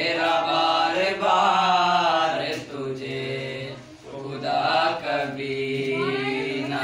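Three teenage boys singing an Urdu/Hindi song together without accompaniment, drawing out long held, wavering notes.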